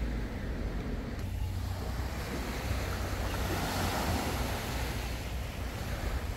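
Sea waves washing on a beach, a steady surf noise, with wind buffeting the microphone.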